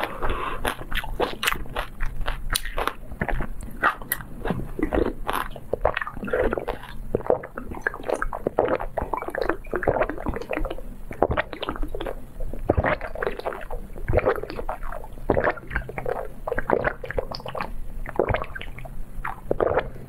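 Wet sucking, slurping and swallowing sounds: liquid being drunk through the spout of a glass bird-shaped straw cup. Irregular mouth clicks and smacks come thick and fast throughout.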